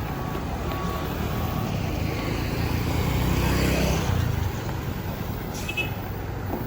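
A large bus engine rumbling as the bus drives past. It grows louder to a peak about halfway through, then eases off.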